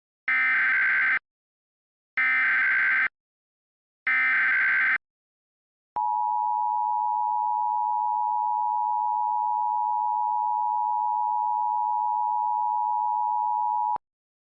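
Emergency Alert System header: three short bursts of digital data noise about a second apart, then the steady two-tone EAS attention signal held for about eight seconds and cut off abruptly. It is the alert preamble announcing a tornado warning.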